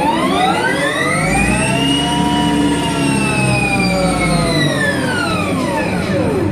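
Harley-Davidson LiveWire electric motorcycle's motor and drive whining as the throttle is twisted while the bike stays put. The whine rises in pitch, holds at its highest a couple of seconds in, then falls steadily and stops near the end.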